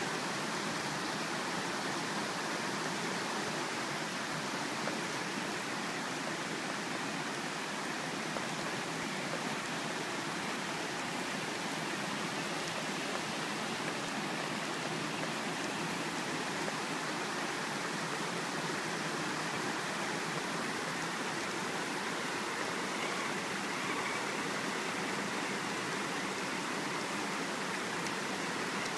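Steady, unbroken rush of a flooded creek's fast-running water.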